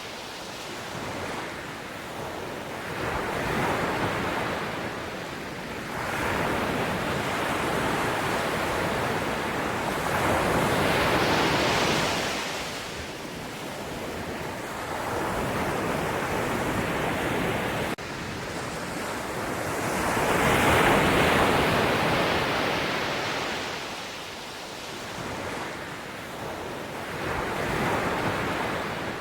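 Sea waves breaking and washing ashore, a rushing surf that swells and falls back in slow surges every several seconds, the biggest about two-thirds of the way through.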